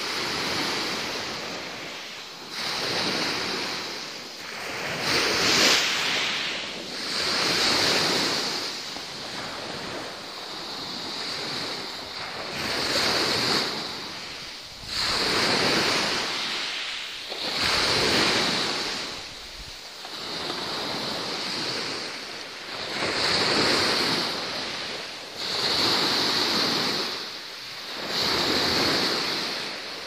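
Sea waves washing in, a rushing hiss that swells and fades about every two to three seconds.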